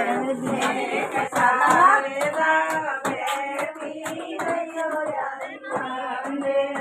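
Voices singing a devotional song with held, wavering notes, with hand claps.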